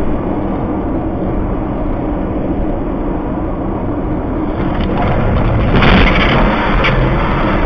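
Steady road and engine noise heard from inside a moving car through a dashcam, growing louder about five seconds in. Knocks and clatter come near six seconds in, as a metal-framed trailer tumbles across the road just ahead.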